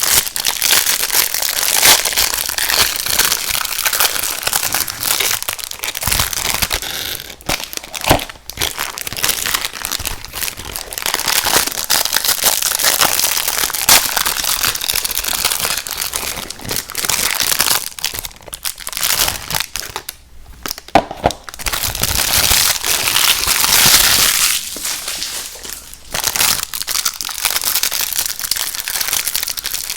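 Plastic snack wrapper being crinkled and crumpled, a loud, dense crackling that goes on almost without a break, easing off briefly a few times.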